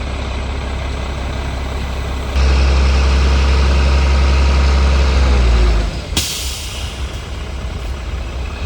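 Dump truck's diesel engine running, revving up hard for about three and a half seconds, then dropping back. A sharp air-brake hiss follows about six seconds in, and the engine carries on at a lower, steady run.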